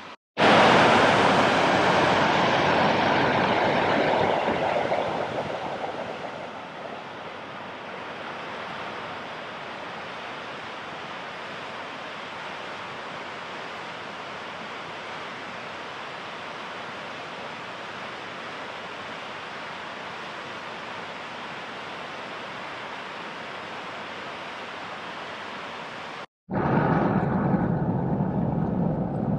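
Flood-swollen muddy creek rushing past in a steady noise of fast water, loudest in the first few seconds, then even. Near the end it cuts to the inside of a moving car, with road noise.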